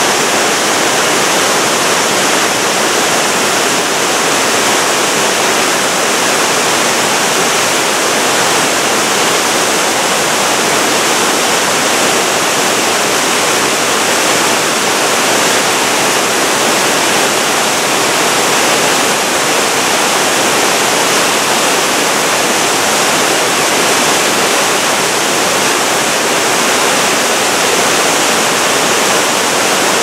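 Small mountain waterfall cascading down a stepped rock face: a steady, even rush of falling water.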